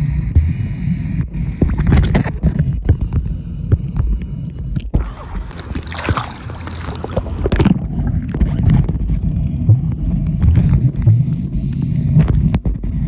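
Boat ride: a steady low engine rumble mixed with wind buffeting the microphone, scattered knocks, and a brief rush of water noise about five to eight seconds in.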